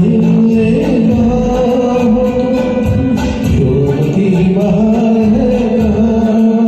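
Karaoke backing track of a Hindi film-song duet playing, its melody held in long, gently bending notes.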